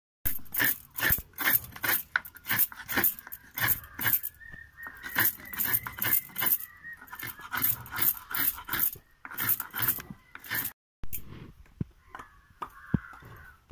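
Fresh coconut being grated by hand, the flesh scraped in quick even strokes about two to three a second, stopping about three quarters of the way through, with a few softer knocks after. A faint high whine is heard behind it in the middle and near the end.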